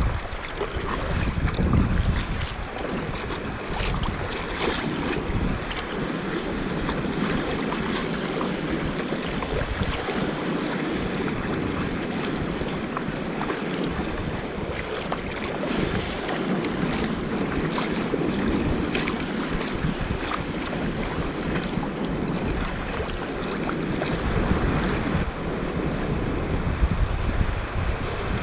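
Sea water sloshing and splashing around a kayak in choppy water, with wind buffeting the microphone in low gusts near the start and again near the end.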